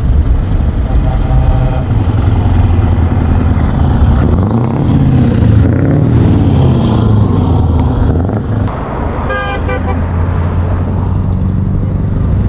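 Heavy truck engines running with a deep drone, rising and falling in pitch as they rev about four to six seconds in. A truck horn toots briefly near the start and sounds again in short pulses a little after nine seconds.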